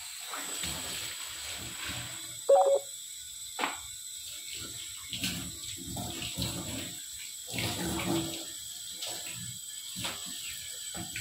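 Kitchen tap turned on and running into a stainless-steel sink, the stream splashing unevenly as hands rinse under it. About two and a half seconds in there is a short, louder pitched note over the water.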